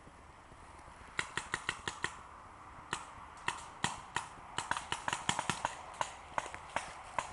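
Paintball markers firing: a rapid, irregular string of sharp pops, several a second, starting about a second in.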